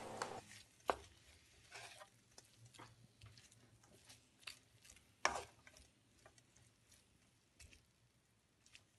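Wooden spatula stirring sliced onion and chopped seaweed stems in a pan: faint scattered scrapes and taps, with a sharper knock about a second in and another at about five seconds.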